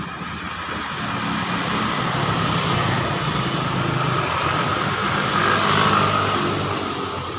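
Road traffic: a motor vehicle's engine and tyre noise swelling as it passes, loudest about six seconds in, then fading.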